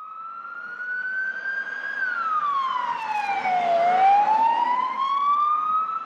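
Emergency vehicle siren wailing, growing louder. The pitch rises slowly, falls over about two seconds, then climbs again.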